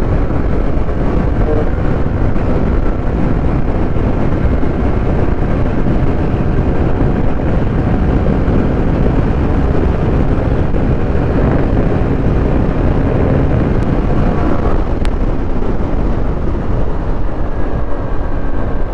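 Small commuter motorcycle riding at speed, its engine running steadily under heavy wind rush on the microphone.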